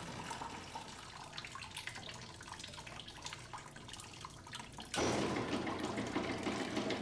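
Cleaning water draining out of a Taylor 359 machine into a bucket: a faint trickle and drips at first, then about five seconds in a steadier, louder stream starts pouring.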